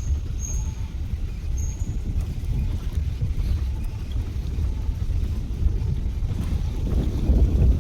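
Open Gypsy safari jeep driving along a forest track, its engine and tyres making a steady low rumble with wind buffeting the microphone. The rumble grows louder near the end. A few short, high chirps sound in the first two seconds.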